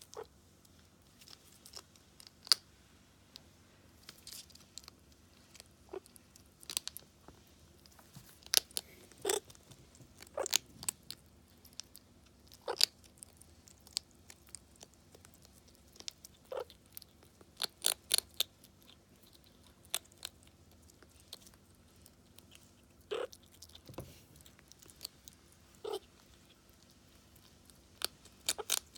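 A pet meerkat chewing dry kibble: irregular crisp crunches, some in quick runs of several bites.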